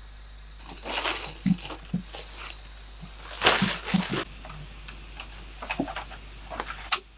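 Dry leaves rustling and crackling as they are handled and spread by hand, in irregular bursts with a few soft thumps.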